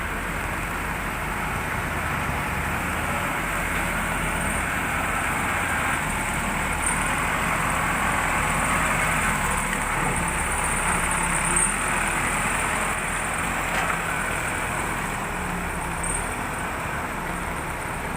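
Case 580 Super L backhoe loader's diesel engine running steadily while working, growing a little louder in the middle.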